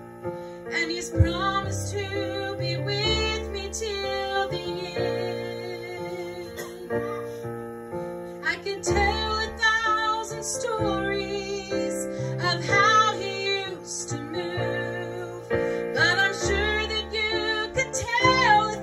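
A woman singing with vibrato in phrases over electric keyboard accompaniment, sustained chords with a bass line underneath.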